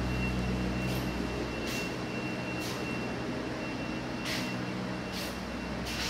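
A low steady mechanical rumble that eases off about two seconds in, with a thin high whine and a few soft scuffs over it.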